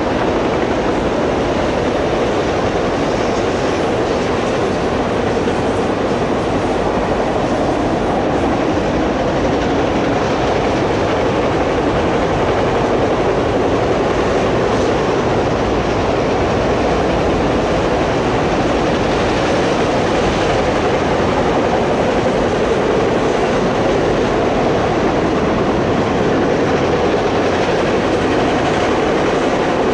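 Freight train of enclosed autorack cars rolling past at steady speed: a continuous, even rumble of steel wheels on rail.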